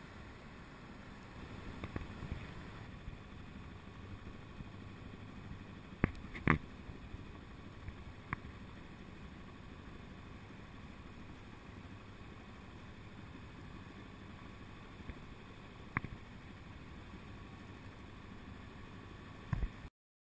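Steady low wash of water and air around a sailboat under way, with a few sharp knocks on the boat, the loudest about six and a half seconds in.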